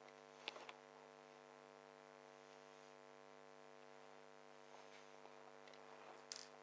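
Near silence over a steady electrical hum, with a few faint clicks of a screwdriver working the panel screws free: a pair about half a second in and a sharper one near the end.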